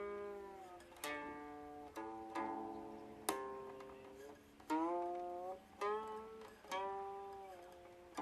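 Steel-string guqin played slowly: about eight single plucked notes, each ringing and dying away, several bending in pitch after the pluck as the finger slides along the string.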